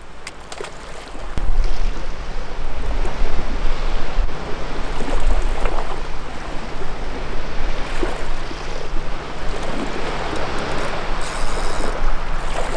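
Sea waves washing against a rocky shore: a steady rushing wash that grows louder about a second and a half in, with a steady low hum underneath.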